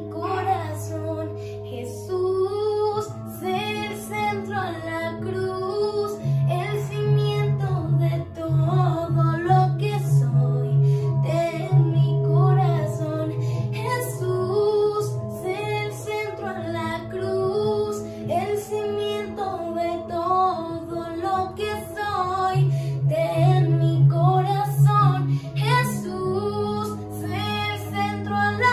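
A song: a female singing voice carrying a slow melody over instrumental backing with long sustained low notes.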